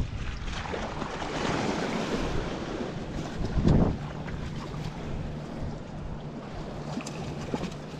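Wind buffeting the microphone over small waves washing and slapping against jetty rocks, with one louder low gust or slap about three and a half seconds in.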